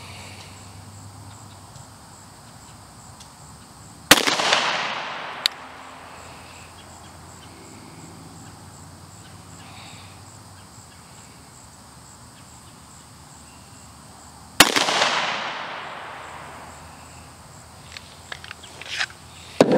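Two single shots from a Glock 41 .45 ACP pistol, about ten seconds apart, each a sharp crack trailing off in about a second of echo. Near the end come a few small clicks as the pistol is handled.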